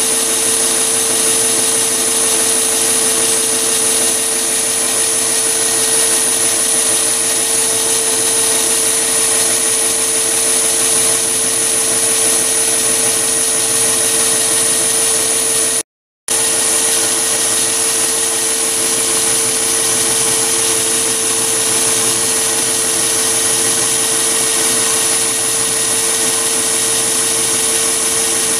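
Mini lathe running steadily with a high whine as an end mill held in its chuck cuts a slot in a metal workpiece. The sound breaks off for a moment about halfway through.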